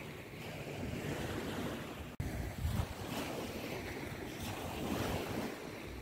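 Wind buffeting the microphone: a steady rushing noise with a low, uneven rumble, briefly cut out a little after two seconds in.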